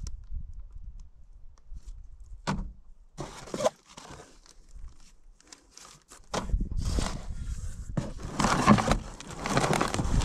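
Plastic parts bags crinkling and a cardboard box rustling as seal-kit parts are handled, with a couple of sharp clicks in the first few seconds. The handling noise gets louder and denser over a low rumble in the second half.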